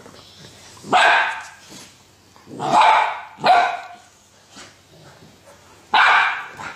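Golden retriever barking, four short, loud barks: one about a second in, two close together in the middle, and one near the end, made in play-scuffling between an adult dog and a puppy.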